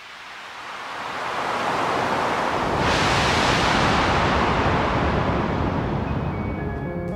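Ocean surf swelling up over a couple of seconds and then slowly easing off, as one long wave wash. Near the end, piano notes come in over it.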